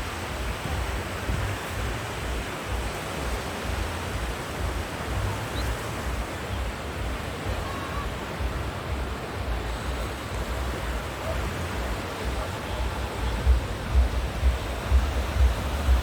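North Sea surf washing steadily onto the beach, with wind rumbling and buffeting the microphone, in stronger gusts over the last few seconds.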